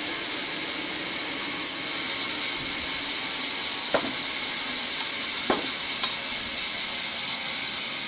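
Sawmill machinery running steadily, with a few short knocks about four and five and a half seconds in.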